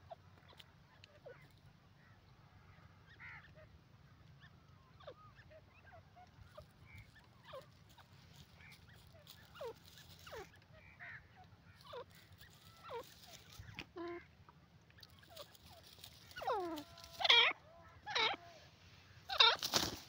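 Grey francolin calling: a run of short, soft notes, each sliding downward, then loud harsh calls near the end.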